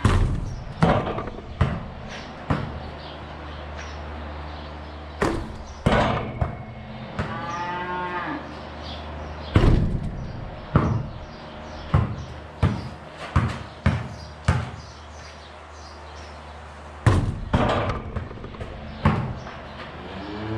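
A basketball bouncing on a hard floor: about fifteen sharp thuds at uneven spacing. A cow moos once, rising and falling, about midway through.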